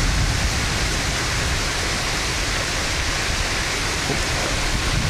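Heavy rain pouring steadily during a thunderstorm, with a low rumble underneath.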